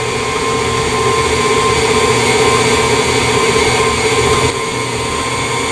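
KitchenAid Artisan stand mixer running steadily at medium speed, its flat paddle beating a creamed butter and sugar mixture in the stainless steel bowl.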